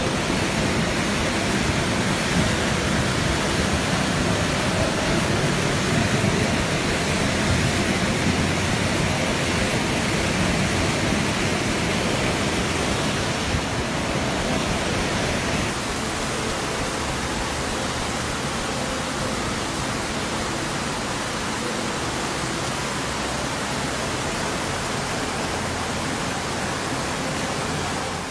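Floodwater rushing in a torrent down a street: a steady, loud rush of running water, a little quieter from about halfway.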